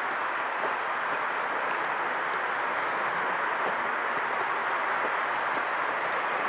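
Mark 3 passenger coaches of a High Speed Train rolling past on the rails: a steady rushing noise of wheels on track, with faint occasional clicks.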